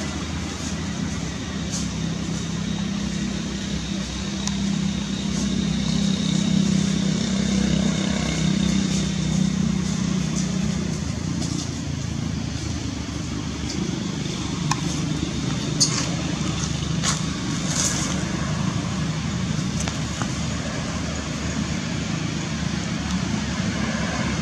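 Steady background noise with a low engine-like hum that swells for several seconds in the middle, and a few short high chirps about two-thirds of the way through.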